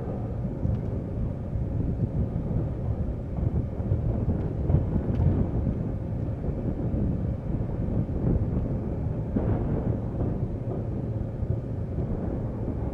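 Passenger train running: a steady low rumble of wheels and track with wind noise on the microphone.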